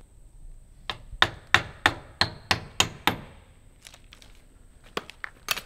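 A row of sharp clicks, about three a second, as a hand tool works the steel window trim; eight in the first half, then three more near the end.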